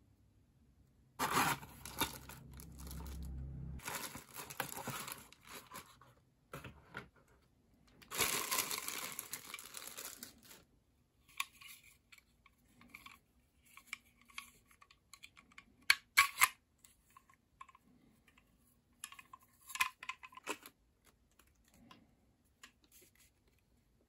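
Unboxing packaging and accessories being handled: three long stretches of rustling and crinkling in the first ten seconds, then scattered clicks and taps of hard plastic parts, with two sharp clicks about two-thirds of the way through.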